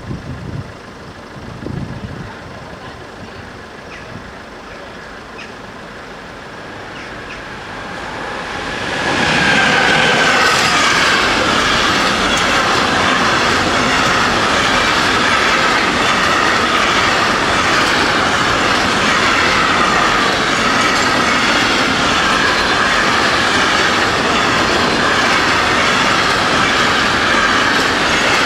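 A train approaching and passing over a level crossing: quieter for the first several seconds, then the rail noise rises quickly about eight to nine seconds in and holds loud and steady, with wavering high wheel tones over it.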